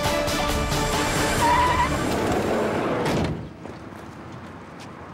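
A car pulling up and braking to a stop with a short tyre squeal, under dramatic soundtrack music. Both cut off abruptly a little over three seconds in.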